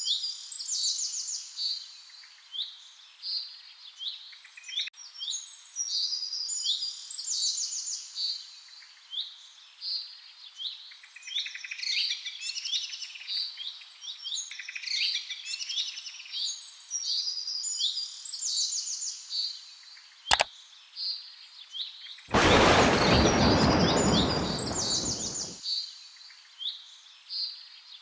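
Several small birds chirping and trilling, in quick, repeated high calls that overlap. A sharp click about twenty seconds in, then a loud rushing noise for about three seconds.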